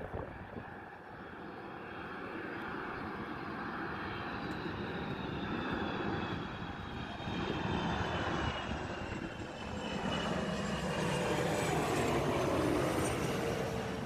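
Jet airliner flying low overhead, its engine noise growing louder as it comes in and passes, with a whine that slides down in pitch near the end.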